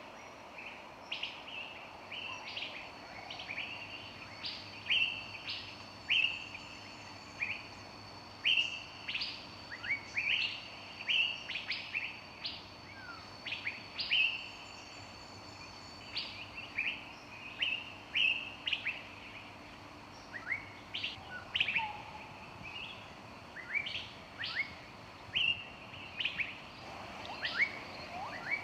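Several small songbirds chirping, with many short, sharp calls repeating irregularly, a few high thin whistled notes held briefly, and a faint steady hiss beneath.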